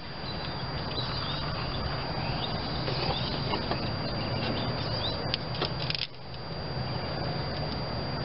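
A steady low mechanical drone with a haze of outdoor noise, light bird chirps, and a few sharp clicks about five seconds in.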